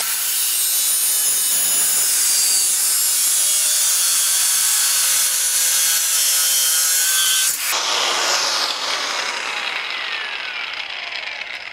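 Angle grinder's cut-off disc, already at full speed, grinding through a metal bar with a loud, steady hiss for about seven and a half seconds. The cut then ends abruptly and the disc spins down with a falling whine that fades away. The footage is played at double speed.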